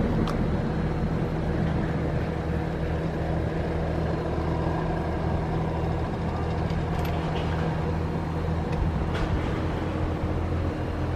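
A small engine idling steadily, with an even low hum and a few faint ticks over it.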